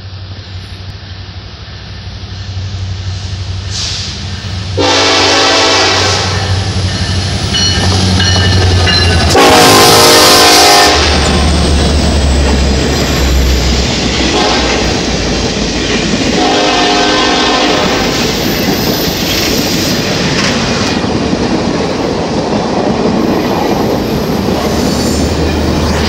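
Union Pacific diesel locomotives approaching and passing at speed, blowing their multi-chime air horn in three blasts, the second the longest and loudest. Their engines rumble low, then the passenger cars roll by with a steady rush of wheels on rail.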